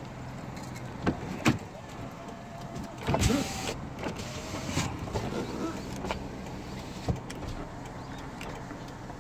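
Car door on a Kia Morning being opened: two sharp latch clicks as the handle is pulled, then a louder clunk and rustle as the door swings open, with a few lighter knocks later. A steady low hum runs underneath.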